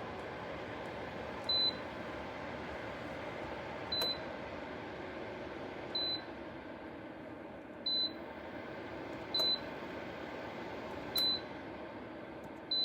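Dreo 1500 W PTC ceramic space heater's fan running with a steady whoosh, with seven short high beeps from its controls every couple of seconds.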